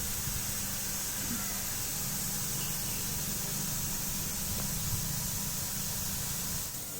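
Steady hiss with a faint low hum underneath; it drops a little just before the end.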